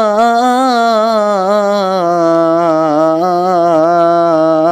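A solo male voice singing a naat unaccompanied, drawing out one long melismatic vowel with vibrato and small ornamental turns, stepping down to a lower note about two seconds in.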